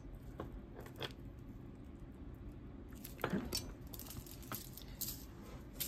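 Faint, scattered clicks and clinks of a beaded gold-tone chain necklace being handled and set down on a cloth-covered table, with a light rustle a little after the middle.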